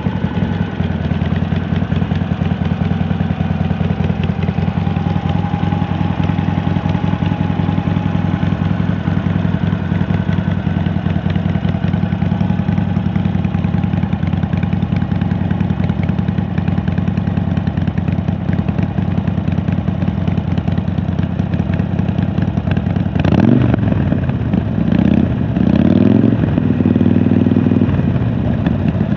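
Harley-Davidson Sportster V-twin with a Penzl exhaust idling steadily, then given a few throttle blips that rise and fall in the last six seconds or so.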